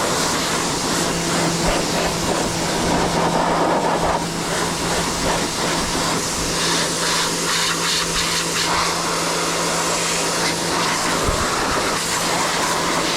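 Pressure washer running with a steady motor hum under the loud hiss of its water jet, blasting caked mud out of a bike's chain.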